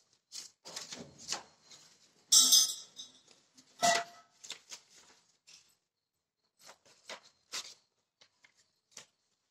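Sheets of paper rustling and crinkling as they are handled and moved on a stone floor: a run of short rustles and clicks, a louder crinkle about two and a half seconds in and a sharp knock around four seconds, then only small scattered rustles.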